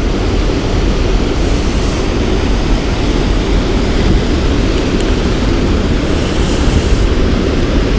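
Steady low rumble of wind buffeting the camera microphone, loud and fluttering, with no clear pitch.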